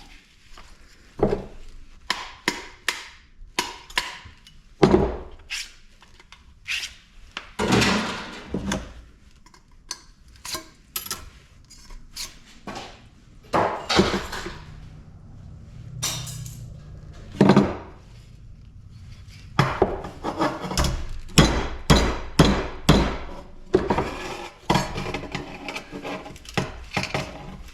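Hammer blows and clanks on an aluminum extrusion being knocked apart for scrap: a rapid, irregular series of sharp knocks, some in quick clusters.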